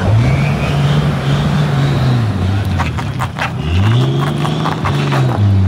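A car's engine revving hard while it is driven in a drift. The pitch climbs, holds and drops, then climbs and drops again about four seconds in, with a few sharp clicks around three seconds in.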